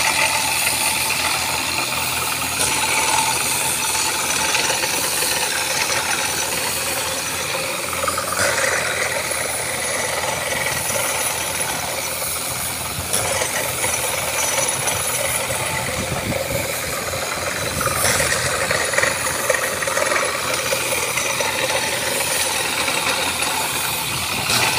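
Borewell drilling rig running steadily, its engine and drilling mechanism over a constant hiss as muddy water and rock cuttings are blown up out of the borehole.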